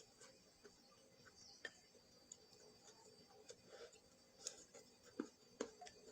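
Faint, scattered clicks and taps of someone eating stir-fried pickled greens and roasted peanuts, with a few sharper clicks near the end.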